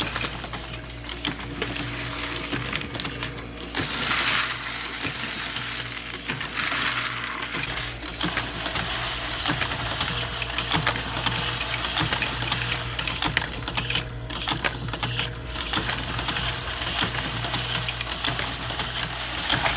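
Automatic ammunition loading machine running, with dense metallic clinking of brass cartridges dropping and rattling together over a steady machine hum.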